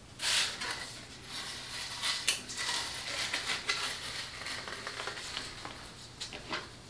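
Stiff tulle netting on a wreath rustling and crackling as the wreath is handled and turned over, then laid down on the work table near the end.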